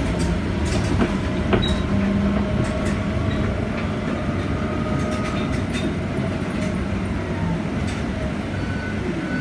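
Cabin noise of a 2019 Proterra Catalyst BE35 battery-electric bus under way: steady road rumble with frequent rattles and clicks, and a faint steady whine.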